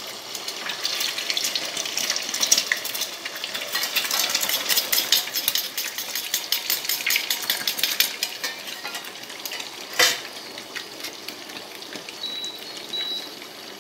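Beaten eggs frying in hot oil in a pot: a dense sizzling crackle that eases off after about nine seconds. A sharp tap comes about ten seconds in, and near the end the induction cooktop's touch panel beeps twice as its power setting is raised.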